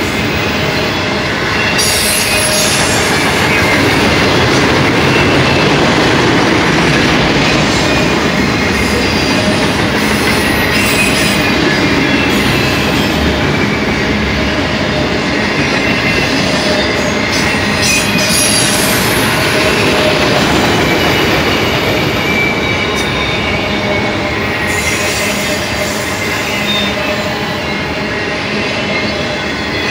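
Loaded auto rack freight cars rolling past with a steady rumble of steel wheels on rail, and thin, high wheel squeals wavering over it.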